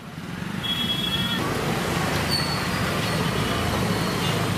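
Busy street traffic: a steady noise of passing vehicles, with a brief high beep about a second in.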